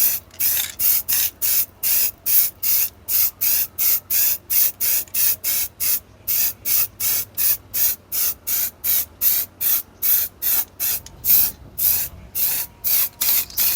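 Short, sharp hissing strokes repeating in a steady rhythm, about three a second.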